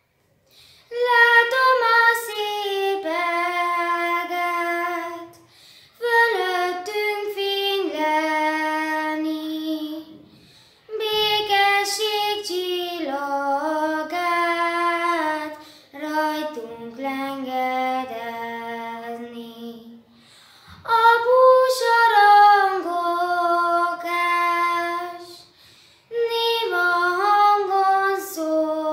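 A girl singing solo and unaccompanied, in sung phrases of about four to five seconds with short breaths between them.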